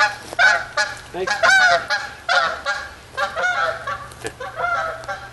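Geese honking: many short calls in quick succession, several a second, some overlapping.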